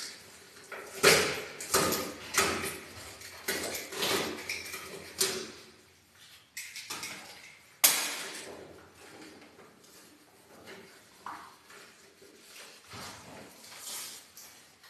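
Heavy paper sack of fine mortar mix rustling and crackling as it is gripped and shaken, in a run of loud crinkling bursts over the first few seconds, one sharp crackle about eight seconds in, then quieter rustling.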